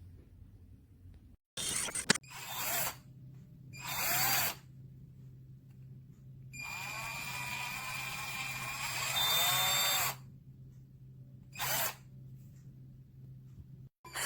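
Small VIWKO cordless drill/driver motor running in several short bursts and one longer run of about three seconds in the middle. The pitch rises as it spins up and falls as it slows.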